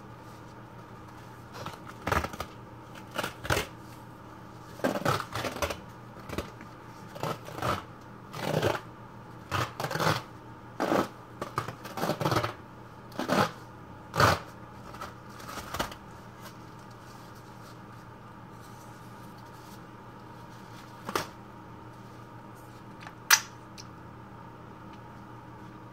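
Bandage being handled and unrolled close to the microphone: a string of short, irregular crinkly rustles for the first half or more, then quiet with two sharp clicks near the end.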